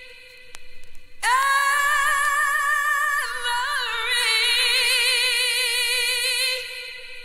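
Vocal house music in a breakdown with no beat: a singer holds long notes with vibrato over a steady sustained synth note. The voice comes in about a second in, shifts pitch midway, and fades near the end.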